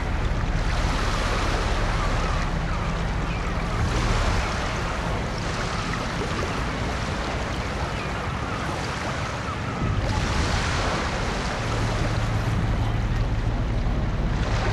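Waterfront ambience: wind on the microphone and moving harbour water, swelling and easing, over a steady low hum.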